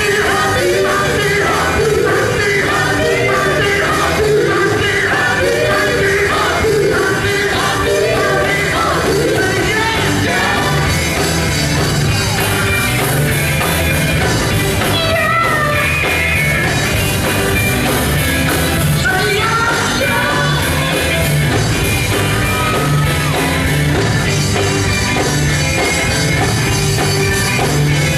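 Male gospel vocal group singing live over a full band with drums, loud and continuous.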